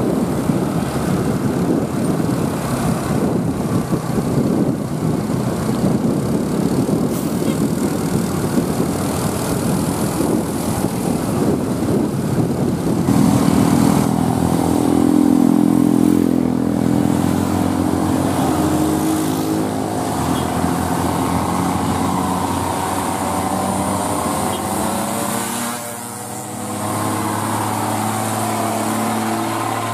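Old Mercedes-Benz truck's diesel engine pulling hard uphill under load while towing a Scania truck, mixed with road and wind noise. About halfway through the engine note becomes clear and louder as the truck comes close, with its pitch shifting slowly; it dips briefly a few seconds before the end, then picks up again.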